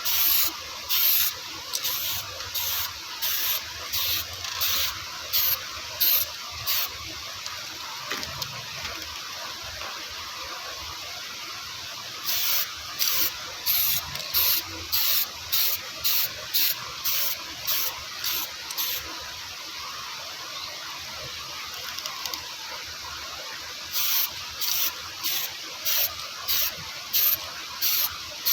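Aerosol spray-paint can sprayed in short, evenly repeated hissing bursts, about one and a half a second, stopping for a few seconds about 7 s in and again about 19 s in, over a steady faint hiss.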